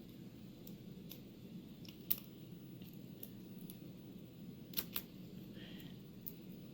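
Light metallic clicks and ticks of small tools working at a lock cylinder's pin chamber, trying to get out a stuck pin spring. The sharpest clicks come about two seconds in and as a quick pair about five seconds in.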